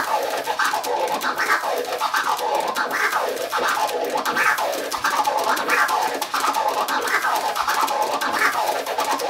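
Vinyl record scratched back and forth on a turntable in a continuous triplet-style four-click orbit: each forward and each backward stroke is chopped by four crossfader clicks into five sounds, with a slight slur that makes it sound like six. A steady run of rising and falling pitch sweeps.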